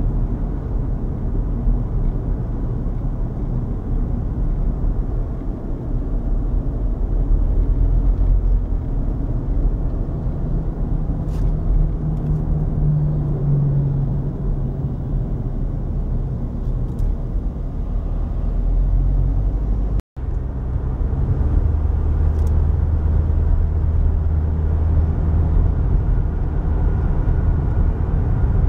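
Road noise inside a moving car: a steady low rumble of tyres and engine at cruising speed. It breaks off for an instant about two-thirds of the way through.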